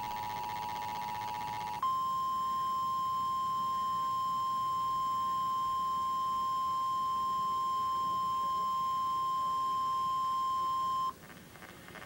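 Emergency Alert System alert tones playing through a TV's speaker: the two-tone attention signal, switching about two seconds in to the single steady 1050 Hz National Weather Service warning tone, which cuts off suddenly near the end.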